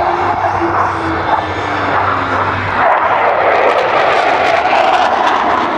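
Blue Angels jets in a four-plane diamond formation making a loud rushing jet roar. The roar swells about three seconds in as the formation passes close overhead.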